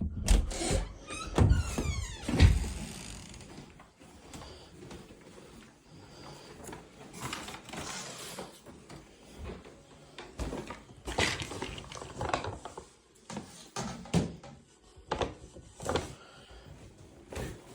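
A house door being opened and shut, with heavy thuds and a falling creak in the first couple of seconds, followed by scattered knocks, clicks and rustling.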